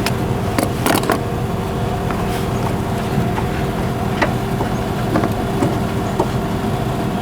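A steady mechanical hum runs throughout, with a few sharp clicks and knocks of hand tools working a seatbelt bolt and interior trim: two close together about a second in, then single ones later.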